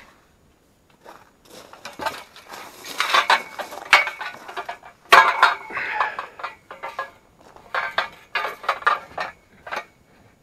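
Loose steel bolts and long galvanized metal tubes clinking and rattling against each other as they are carried, in irregular bursts.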